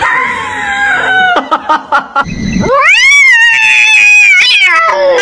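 Cats meowing: a falling meow, a few knocks, then a long loud yowl that rises and then falls in pitch over about three seconds.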